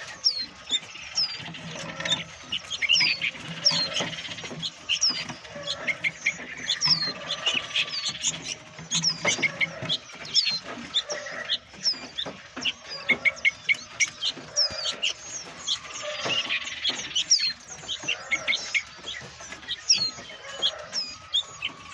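Many caged songbirds chirping and twittering together, a dense overlap of quick, high chirps that slide downward in pitch.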